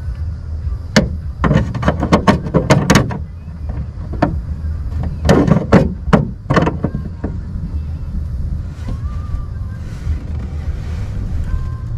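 Channel-lock pliers working the nut of a drain-plug fitting tight against a metal jon boat hull: quick runs of sharp metal clicks and clanks, one cluster about a second in and another around the middle, over a steady low rumble.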